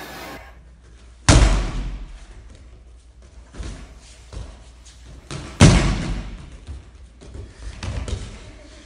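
Two heavy thuds, about four seconds apart, as people in grappling-dummy suits are slammed onto martial-arts gym mats, with a few lighter knocks and shuffles between them.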